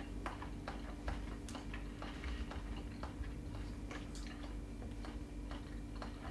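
Knife and fork clicking lightly against a plate while fish is cut and eaten, about two or three soft clicks a second, over a steady low hum.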